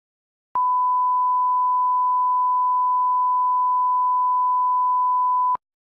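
Broadcast test tone that goes with TV colour bars: one steady, pure beep that starts about half a second in, holds for about five seconds and cuts off suddenly, with a small click as it starts and stops.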